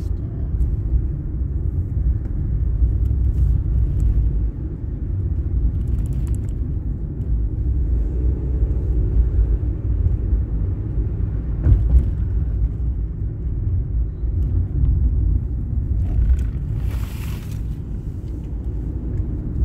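Steady low engine and road rumble inside a moving car's cabin, with a few faint clicks and a brief hiss near the end.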